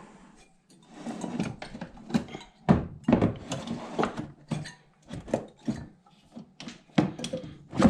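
Irregular knocks, clicks and rattles of tumble dryer parts being handled and pressed into place, with a sharper knock about three seconds in and another near the end.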